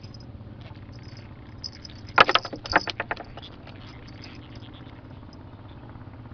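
A steady low engine hum, with a short burst of rattling knocks about two seconds in.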